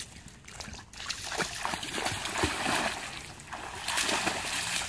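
A dog plunging into lake water and swimming out after a thrown stick: an irregular run of splashes and sloshing that starts about a second in.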